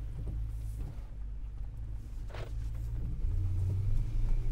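The 4.0 L S65 V8 of a 2010 BMW E90 M3, fitted with an Active Autowerke exhaust and test pipes, running at low revs with a deep, steady rumble. The rumble gets louder about three seconds in as the car is backed up.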